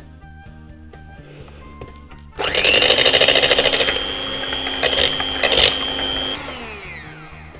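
Electric hand mixer switched on about two seconds in, its motor whining up to a steady high pitch as the beaters whip egg whites in a glass bowl, with a couple of sharp knocks in the middle. After about four seconds it is switched off and its pitch falls away as it winds down.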